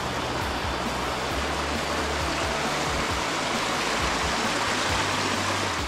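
Shallow, rocky creek rushing and splashing over stones, a steady rush of water, with background music faintly underneath.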